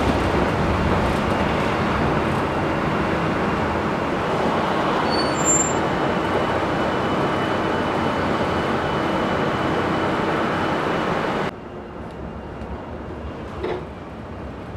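Restored PCC streetcar running along its track, heard from inside the car near the operator: a steady rumble from the wheels and running gear, with a brief high ping about five and a half seconds in. The noise drops abruptly about three-quarters of the way through.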